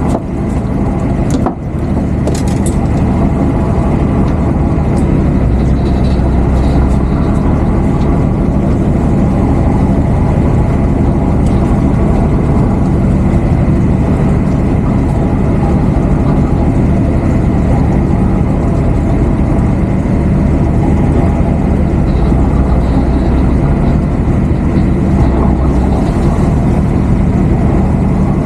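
A boat's engine running steadily, a loud, even, low drone.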